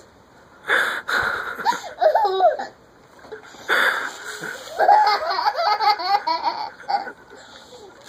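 Baby laughing in bursts of belly laughs, set off by short breathy blasts from a party blower, one about a second in and another near the middle.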